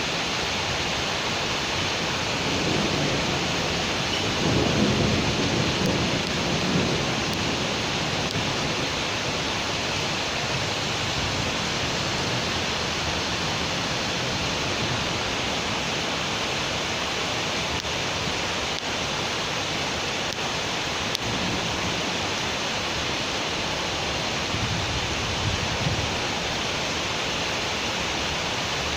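Steady rain falling in a city, an even hiss. A low rumble swells up a few seconds in and fades, with a smaller one near the end.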